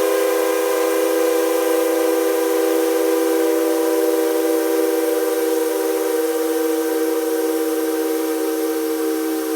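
A long, steady multi-tone whistle sounding a chord of several close pitches, held without a break.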